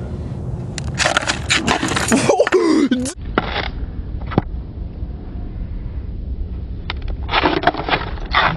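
Skateboard on pavement during a trick attempt: sharp clacks of the board's tail and wheels hitting the ground and scrapes of the deck, in a cluster from about one to three seconds in and again near the end, over a low rolling rumble.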